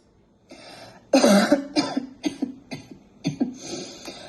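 A man coughing: one strong cough about a second in, then a string of shorter coughs, set off by a scratchy, irritated throat.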